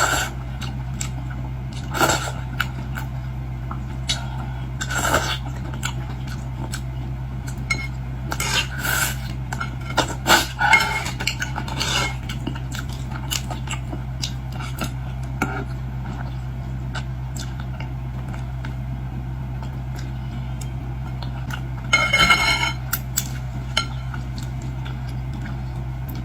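Eating sounds from a plate of boiled shrimp and lobster: scattered sharp clicks, clinks and short crackly bursts as shells are handled and tableware knocks together, with a busy cluster in the middle and another near the end. A steady low hum runs underneath.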